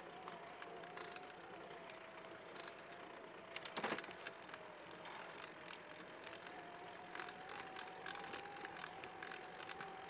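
Tadpole recumbent trike rolling along a concrete path: a steady, slightly wavering whine with scattered ticks and rattles, and a short louder clatter just under four seconds in.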